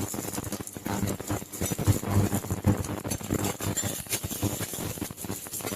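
Chopped garlic, ginger and green chilli frying in hot groundnut oil in a pressure cooker, with irregular clicks and taps as they go in and are stirred.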